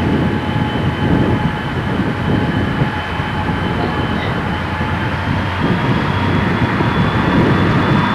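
Diesel-electric freight locomotives, a BL class leading, approaching with their engines running: a steady heavy rumble that grows louder at the start and then holds.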